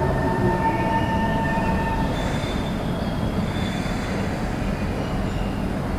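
SMRT C151 metro train slowing into an underground station over a low rumble, with a steady high whine that stops about two seconds in. Fainter, higher squeals follow as it brakes.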